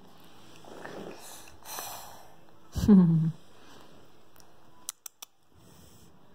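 Two soft breathy snuffles, then a short, loud vocal grunt that falls in pitch about three seconds in, followed by three sharp clicks near the end.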